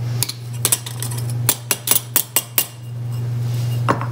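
Porlex Mini hand grinder's stainless steel grounds cup tapped against a metal dosing funnel to knock the coffee grounds out: a quick run of about ten sharp metallic clinks, then a single knock near the end.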